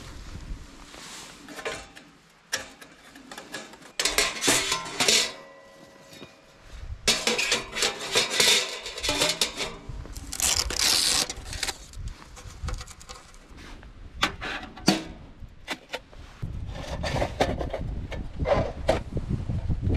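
Camping gear and metal cookware being handled: irregular clinks, knocks and rustling, with a few louder bursts of rustling in the first half. Guitar music plays underneath.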